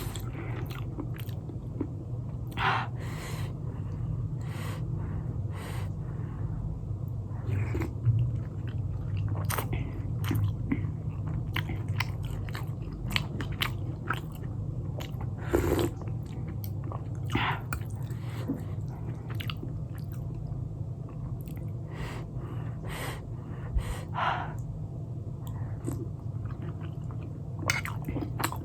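Close-up chewing and biting of lightly pan-fried momos in spicy peanut chutney, with irregular mouth clicks and smacks throughout. A steady low hum runs underneath.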